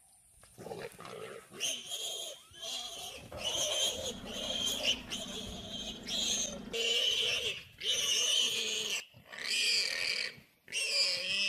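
Warthog squealing in distress as a leopard seizes it: a run of shrill, high-pitched squeals, each about a second long, one after another with only short breaks.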